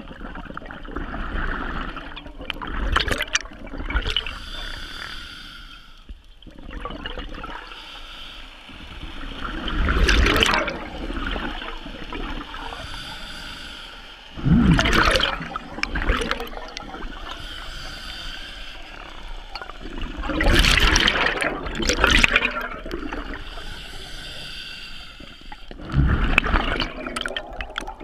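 Scuba diver breathing underwater through a regulator: loud rushes of exhaled bubbles come about every five or six seconds, with a lower hiss and gurgle between them.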